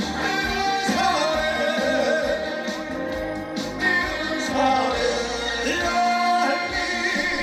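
Live Korean trot song: a male singer sings into a microphone over an upbeat accompaniment with a steady beat, the voice wavering in vibrato.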